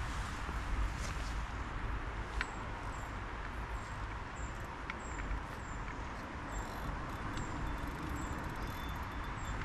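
Riverbank ambience: a steady rushing noise with a low rumble. From about two seconds in, a short high chirp repeats roughly every half second.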